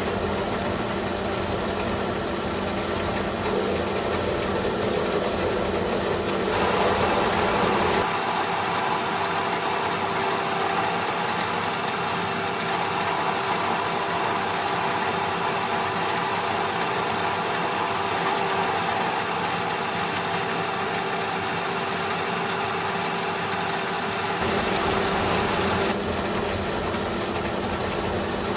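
Metal lathe running steadily while it machines a part, its motor and drive giving a constant hum. The pitch and character shift a few times, about six and eight seconds in and again near the end.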